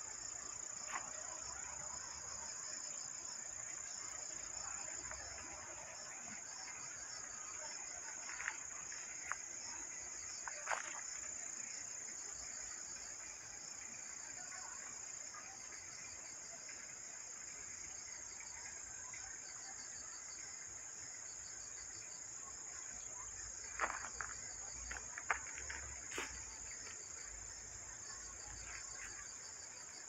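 Crickets chirring in a steady, high-pitched insect chorus. A few short clicks break in about a third of the way through and again past three quarters.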